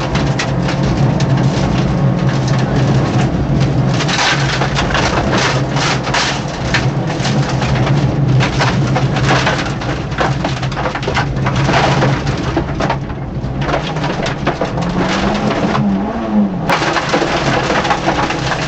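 Peugeot 205 rally car's 1.9-litre engine running hard at speed, heard from inside the cabin, under a dense clatter of knocks and rattles from the road surface and car body. Near the end the engine note rises and then falls.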